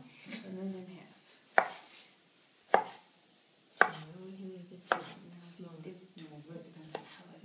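Chef's knife slicing small tomatoes on a wooden cutting board, the blade knocking sharply against the board about once a second, five clear strikes.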